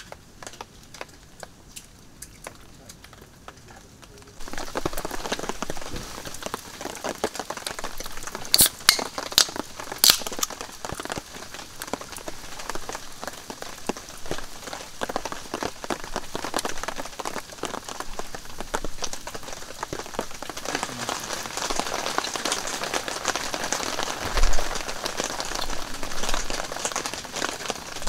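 Steady rain pattering on a canvas camp tarp, stepping up in level about four seconds in, with scattered sharp crackles from a wood campfire. A low thump comes near the end.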